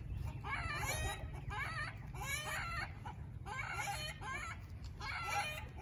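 Chickens clucking in a run of short, wavering calls every half second or so, with a pause about three seconds in. A steady low rumble runs underneath.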